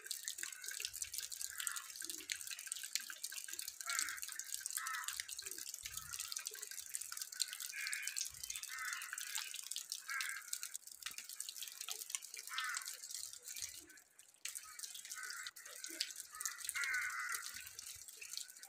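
Wet snowfall pattering and dripping: a steady patter of fine ticks and drops.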